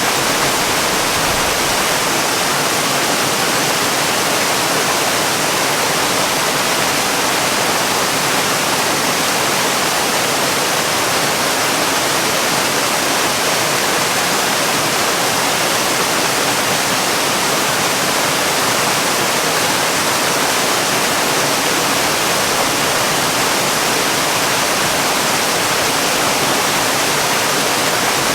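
Waterfall: a steady, unbroken rush of falling water, even and hiss-like, with little low rumble.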